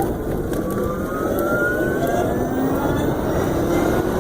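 2015 Zero SR electric motorcycle accelerating hard from a start: its electric motor's whine climbs steadily in pitch, several tones rising together, over a steady rush of wind and road noise.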